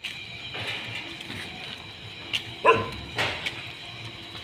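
A dog barks, a short sharp bark about two and a half seconds in and a weaker one just after, over low steady street noise.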